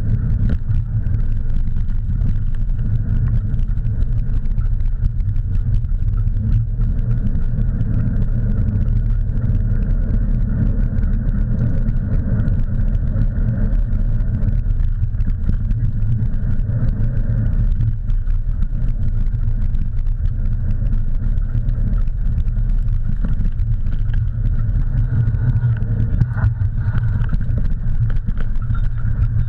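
Steady low rumble of a dog-pulled rig's wheels rolling over a dirt trail, picked up through a handlebar-mounted camera, with wind on the microphone.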